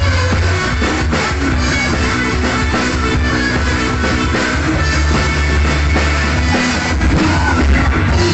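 Live rock band playing an instrumental passage: electric guitars, bass guitar and drum kit together, loud and steady.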